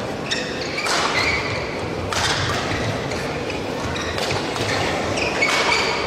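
Badminton doubles rally: rackets strike the shuttlecock with sharp cracks a few times, shoes squeak briefly on the court, and crowd noise runs underneath.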